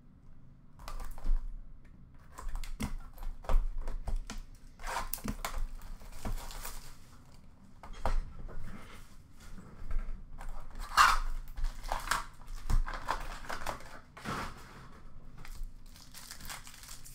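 Plastic wrap and cardboard of a sealed Upper Deck Allure hockey card box crinkling and tearing as it is opened, with the foil packs inside rustling as they are handled. The sound is irregular crackling and rustling with sharp snaps.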